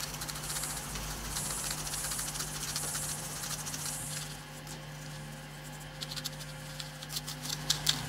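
Gritty scraping hiss of dry beach sand being stirred together with epoxy resin in a small container, in several swishes over the first half, then a run of faint light ticks. A steady low hum sits underneath.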